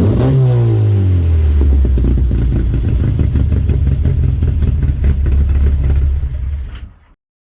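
Classic Mini's A-series four-cylinder engine revving and falling back over the first second or so, then running steadily at a lower speed, and fading out near the end.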